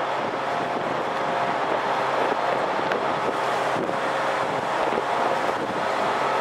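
Class 67 diesel-hauled passenger train moving slowly along the platform: a steady rumble of engine and wheels with a faint held engine hum.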